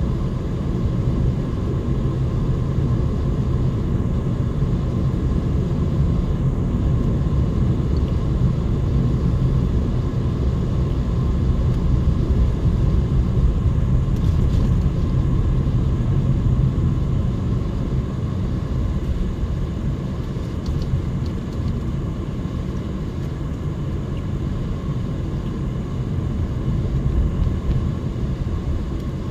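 Steady low rumble of a car driving along a road: engine and tyre noise heard from inside the cabin.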